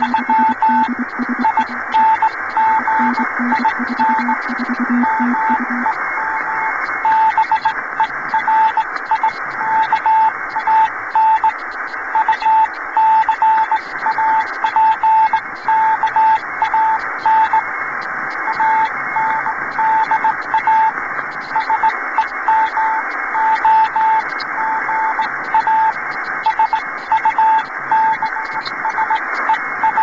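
Morse code (CW) received on a shortwave amateur radio on the 15-metre band (21.009 MHz): a keyed tone of dots and dashes over steady band hiss and static crackle, spelling out a message of good wishes from the Dutch commemorative station PI90PCG. A second, lower-pitched keyed tone is heard alongside it for the first six seconds or so.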